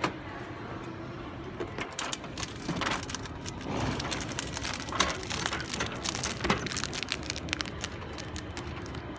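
A hand pushes into a vending machine's delivery-port flap and pulls out a sandwich in a plastic wrapper, making a sharp click at the start, then a run of clicks, knocks and plastic crinkling over a steady background hum.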